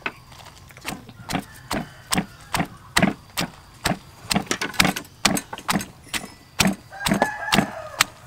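Stone pestle pounding garlic cloves and red chilies in a stone mortar: regular knocks, about two strokes a second.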